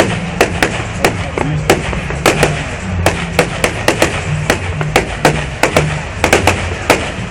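Fireworks going off in a rapid, irregular string of sharp bangs and cracks, several a second. Music with a stepping bass line plays underneath.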